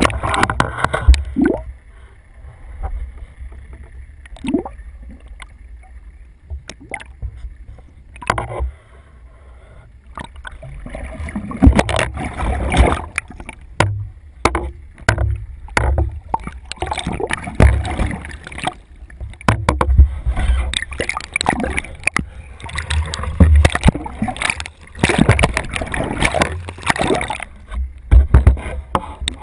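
Muffled sound of water heard through an underwater camera housing: gurgling and sloshing over a steady low rumble, broken by many sharp knocks and splashes. The knocks and splashes grow denser and louder about halfway through and stay that way, as the camera on the gaff is worked in the water.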